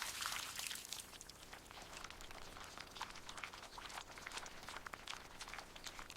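Faint, irregular crunching and crinkling, a quick run of small crackles that is densest for about the first second and then thins out.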